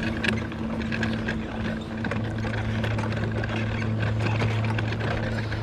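Steady motor hum of a small ride-on vehicle moving across a grass field, with light rattling over the bumpy ground.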